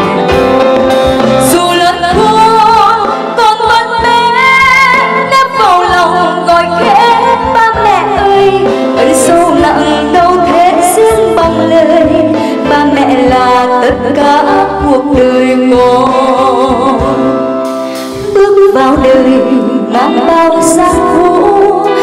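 Live band music from a slow Vietnamese ballad, with a woman singing over electric guitar and drum accompaniment. The music briefly softens near the end.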